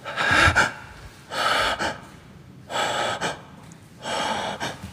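A man breathing heavily close to the microphone: four loud, rasping breaths, about one every second and a half.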